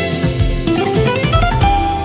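Background music led by plucked guitar, with a quick run of notes rising in pitch through the middle.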